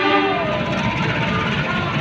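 Passenger train rolling past a station platform: a steady rumble with thin, high squealing tones over it.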